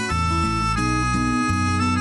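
Background music: held chords that change every second or so.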